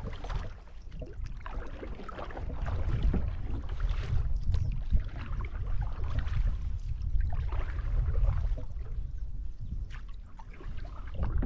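Canoe paddle strokes dipping and pulling through the water, with a splash and drip every second or two, over a steady low rumble of wind on the microphone.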